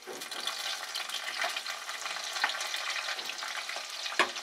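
Sliced onions hitting hot cooking oil in a nonstick kadai and frying, a crackling sizzle that starts abruptly as they go in. A few sharp clicks sound over it, the loudest near the end.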